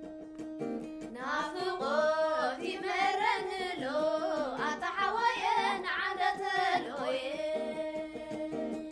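Women singing a Tigrinya song to a plucked krar (lyre). The krar plays alone for about the first second, and again after the singing stops about seven seconds in.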